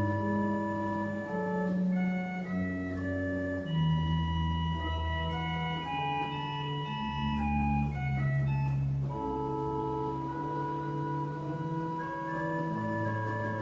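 Italian-style pipe organ built in Savona in 1900, playing slow sustained chords over deep held pedal bass notes, the chords changing every second or two.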